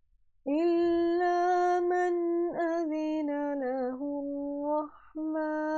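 A woman reciting the Quran in slow, melodic tajwid chant. After a half-second pause she holds long drawn-out notes, with a wavering ornamented stretch in the middle and a short break for breath about five seconds in.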